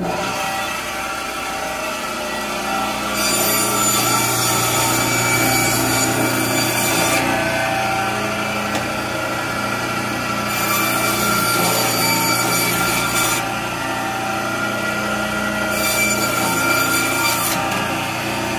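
Electric meat band saw running with a steady hum as a tuna head is fed through its blade; three times a louder hiss rises and falls away as the blade bites into the head.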